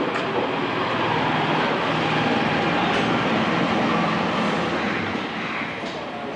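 A car driving, with steady running and road noise.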